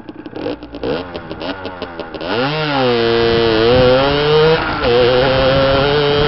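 Beta RRT 50 enduro's 50cc two-stroke engine popping unevenly at low revs, then revving up about two seconds in and running steadily at high revs, with a brief dip in revs near the end.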